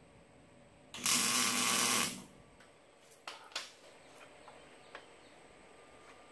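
A wire-feed welder laying one tack weld, a steady hiss about a second long that starts and cuts off sharply, tacking a steel shock-mount bracket onto an axle tube. A few light clicks follow.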